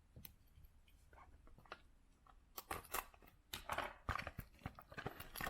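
Packaging being handled and torn as a trading-card box is opened: a few faint ticks, then from about halfway in a run of sharp crackling clicks and rustles.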